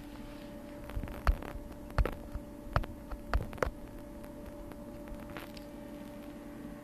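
A steady low hum, with about half a dozen knocks and bumps between one and four seconds in from a handheld camera and the paper sheets being handled.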